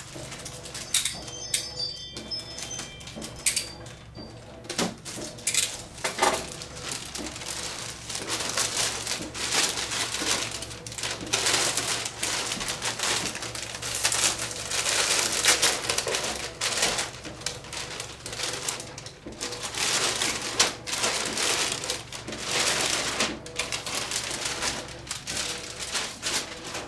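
Plastic packaging being handled by hand, rustling and crinkling in irregular bursts as a wing of an RC airplane is unwrapped.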